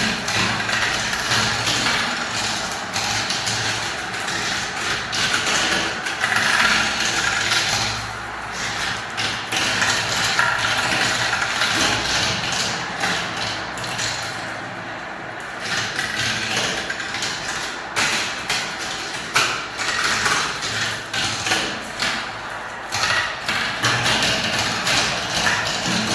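Marbles rolling down a spiral marble-run track: a continuous rolling rumble dotted with many small clicks and knocks as the balls clatter along.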